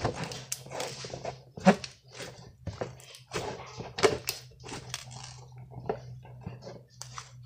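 Pink slime being squeezed, stretched and folded by hand, giving irregular wet squishes and sharp pops; the loudest pops come a little under two seconds in and about four seconds in.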